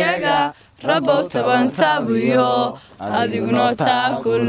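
A group of young men and women singing together, unaccompanied, in three phrases with short breaks between them.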